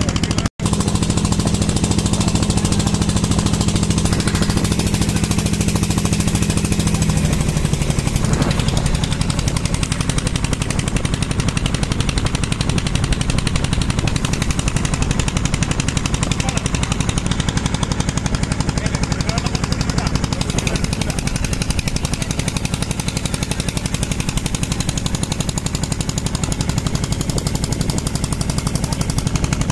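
Boat engine running steadily with a rapid, even knocking; its low note shifts about seven seconds in.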